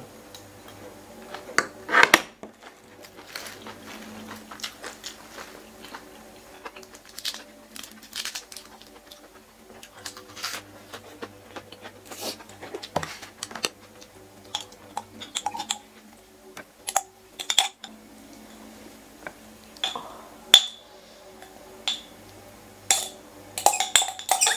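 Metal fork and spoon clinking and scraping against a metal serving tray while eating, in scattered short clicks. Near the end a quick flurry of clicks and clinks as a jar of chili paste is opened. A faint steady hum runs underneath.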